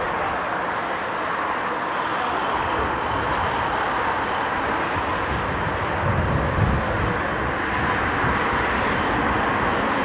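Boeing 777-300ER's GE90 turbofan engines running at taxi power as the airliner taxis by, a steady jet rush with a brief low rumble about six seconds in.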